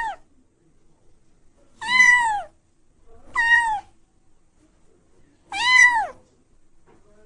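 Domestic cat meowing repeatedly: three separate meows, each rising and then falling away at the end, with short quiet gaps between them. The tail of a fourth meow falls off right at the start.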